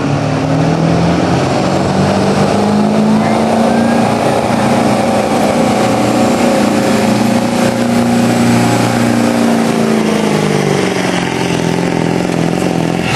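Pickup truck engine at full throttle pulling a weight sled: the pitch climbs over the first few seconds, holds high under load, then drops as the driver backs off near the end.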